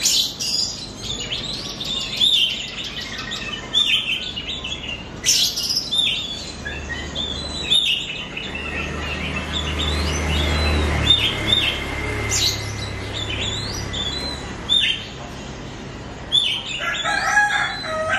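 Oriental magpie-robin (kacer) singing a young bird's unfinished song: a run of short, sharp whistled notes and chirps repeated with gaps between. A low rumble runs in the background around the middle.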